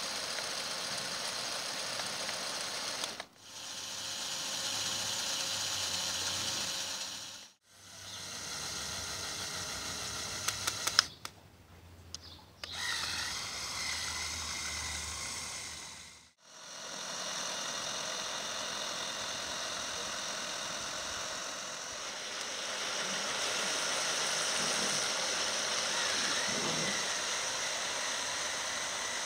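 Small electric motors and plastic gears of a motorised Lego Technic tractor model whirring steadily, in several takes broken by brief fades to silence, with a few sharp clicks near the middle.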